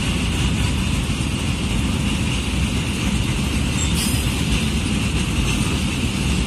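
Container freight train wagons rolling past: a loud, steady rumble of wheels on the rails with a constant high hiss above it.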